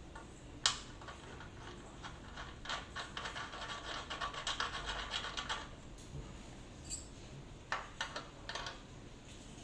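Small metal clicks and rattling from hand tools working on an exercise bike's crank: one sharp click early, a run of quick clicks lasting about three seconds in the middle, and a few more clicks near the end.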